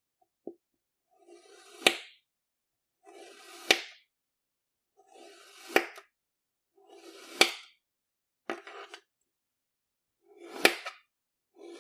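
A knife slicing through a ball of kinetic sand: a soft gritty crunch that ends in a sharp tap, repeated five times about every two seconds, with a sixth cut starting at the very end.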